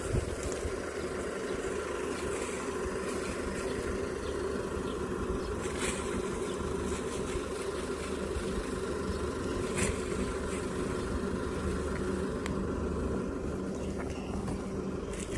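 A steady mechanical hum like an engine running, with a few short clicks over it.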